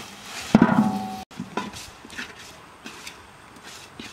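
A loud knock with a brief ringing clatter about half a second in, followed by scattered lighter knocks and clicks, like cooking or chopping work.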